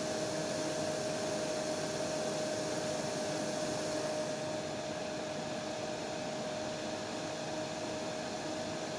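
Hair dryer running steadily: an even hiss of rushing air with a steady whine from its motor. The high hiss drops a little about four seconds in.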